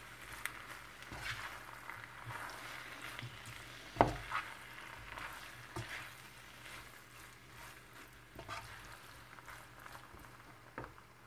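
Pasta and vegetables being stirred and tossed in a nonstick frying pan with a slotted spatula, with a faint frying sizzle and scattered scrapes and clicks of the spatula against the pan. A sharp knock of the spatula on the pan about four seconds in is the loudest sound.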